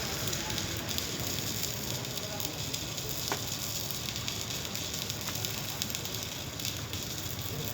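Electric arc welding on a pipe: a steady, continuous crackling sizzle of the arc with fine rapid pops.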